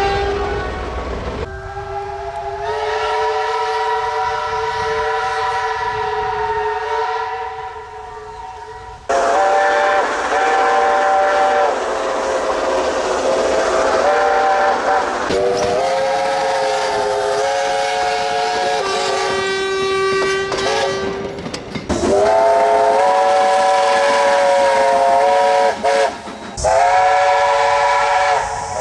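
New Zealand Railways steam locomotive whistles: a string of about half a dozen long chime blasts, each held for several seconds, from separate recordings cut one after another.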